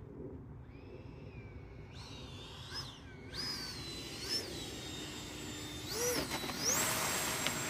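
FMS Rafale's 80mm electric ducted fan whining in flight, its pitch rising and falling as the throttle is worked. It is faint at first, grows louder about two seconds in, and surges to a higher, louder whine near the end.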